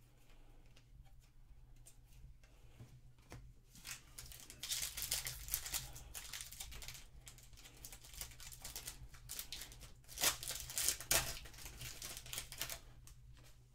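Foil wrapper of a trading card pack being torn open and crinkled by hand, in two spells of crackling a few seconds apart, with the cards sliding out.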